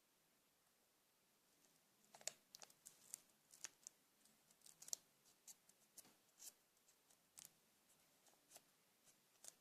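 Faint handling of paper and sticky tape: irregular small crinkles, taps and clicks, beginning about two seconds in.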